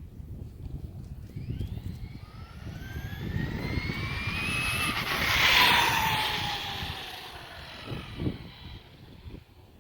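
Brushless motor and drivetrain of an RC monster truck whining as it speeds up and passes close by. The pitch rises as it approaches, it is loudest about five and a half seconds in, then the pitch drops and the sound fades as it moves away, over a low rumble.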